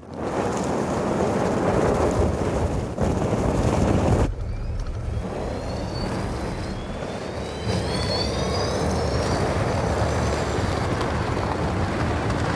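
Audi e-tron electric SUV on spiked snow tyres driving up a steep snow slope: a steady rush of tyres churning snow. The rush drops suddenly about four seconds in, and a few faint rising electric-motor whines come after it.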